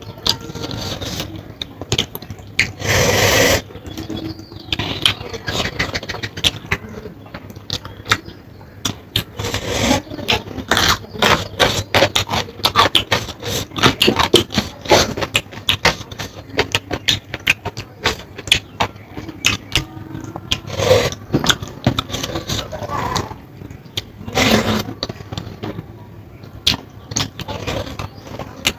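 A person eating: close-up chewing and mouth sounds, dense with small wet clicks and smacks, with a brief louder noisy burst about three seconds in.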